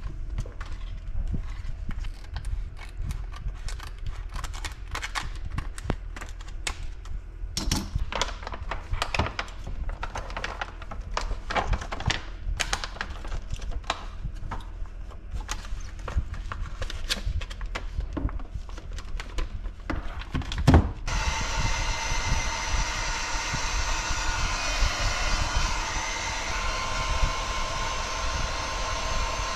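Large black heat-shrink tube crinkling and rustling, with clicks and taps, as a lithium-ion battery pack is handled and slid into it. A sharp knock comes about 21 seconds in. Then a heat gun starts abruptly with a steady blowing hiss and runs on as it shrinks the tube around the pack.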